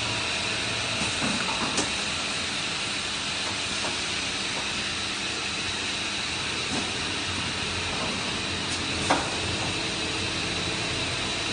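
Automatic PVC pipe belling machine running: a steady hiss with a faint high whine. Two sharp clicks, one just under two seconds in and a louder one a couple of seconds before the end.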